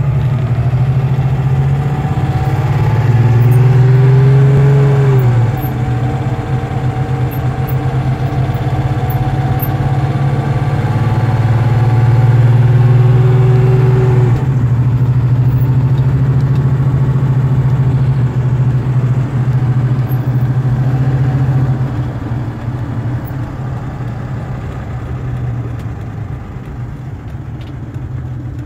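Mercedes-Benz W123 250's 2.5-litre inline-six engine heard from inside the cabin while driving. Its pitch climbs under acceleration and falls back twice as the automatic gearbox shifts up, then it runs steadier and a little quieter near the end as the car eases off.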